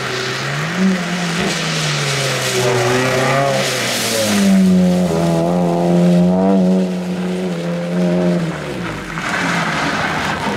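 Peugeot 206 RC rally car's four-cylinder engine being driven hard: revs dip and climb early on, then rise and hold high and steady for several seconds before falling away about nine seconds in. There is a rush of noise about four seconds in.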